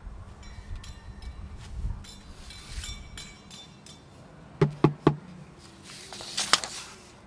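A kitchen pan being drummed on by a toddler: scattered light knocks and clatter, then three quick hard hits about halfway through, each leaving a brief low ring, and another short burst of hits near the end.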